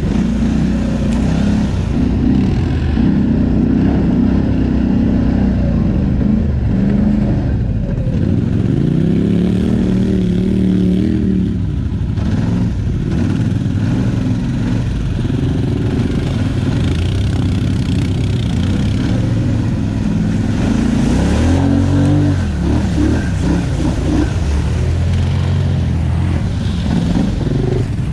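ATV engine running hard, its revs rising and falling again and again as the throttle is opened and eased; the pitch climbs and drops in a long sweep about ten seconds in and again past twenty seconds.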